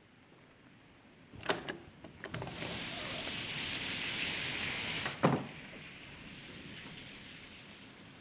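A door latch clicks twice and the door opens, letting in a steady loud hiss of rain from outside for about three seconds. Then the door bangs shut and the rain drops to a faint hiss.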